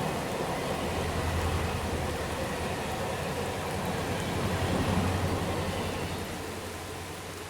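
Train rumbling on the rails, a low steady rumble that dies away over the last couple of seconds, over a steady hiss of rain.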